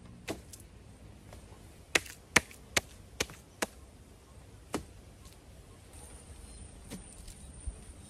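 Handfuls of wet mud slapped and pressed by hand onto a wattle frame of sticks: a string of sharp slaps, five in quick succession about half a second apart from around two seconds in, then a few more spaced out.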